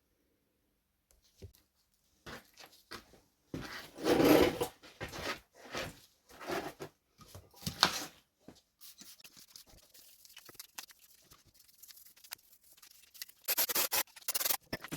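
A Solex 34 PICT 3 carburettor being cleaned by hand: irregular scrubbing and rubbing on the metal body, with a few louder handling clatters around four and eight seconds in and a fainter, steady scraping in between.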